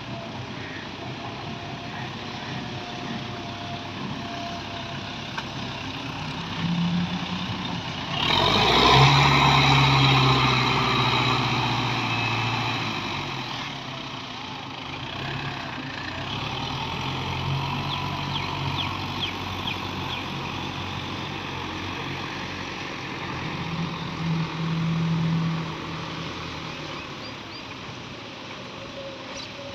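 Belarus tractor diesel engines running while working front loaders, the engine revving up several times. The loudest rev starts about eight seconds in and holds for about five seconds before settling back.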